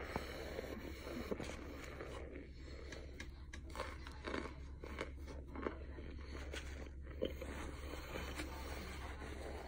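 Close-up biting and chewing of soft, powdery chunks of starch, with scattered small crunches and mouth clicks throughout.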